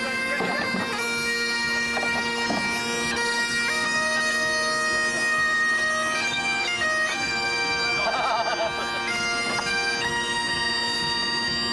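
Breton bagpipe (biniou braz) playing a tune over its steady drones, together with a bombarde; the melody steps from note to note while the drone holds one pitch.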